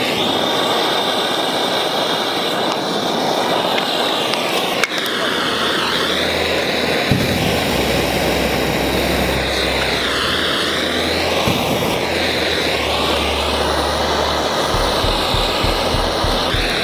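Handheld gas blowtorch burning with a steady rushing hiss as its flame is played on a tennis ball.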